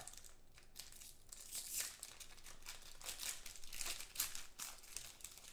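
Clear plastic shrink wrap being torn and pulled off a trading-card box by hand, crinkling and crackling in short irregular bursts.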